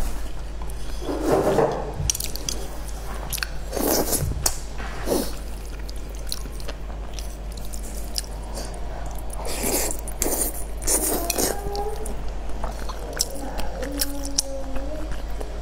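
Close-up eating sounds of wide flat mianpi noodles in spicy sauce: wet chewing and slurping with many short mouth smacks and clicks, and a few louder sucking bursts spread through.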